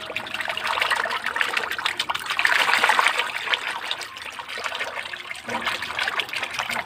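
Water sloshing and splashing in a plastic tub as a hand scrubs a plastic toy under the water with a sponge: a busy run of small splashes, loudest about halfway through, then easing.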